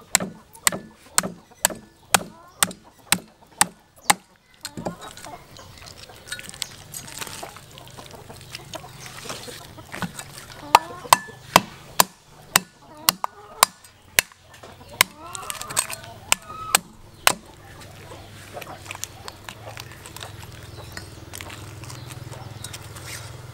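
A meat cleaver chops a large fish on a wooden chopping block in quick, regular strikes, about two or three a second. The strikes run for the first few seconds and come again in a second run around the middle.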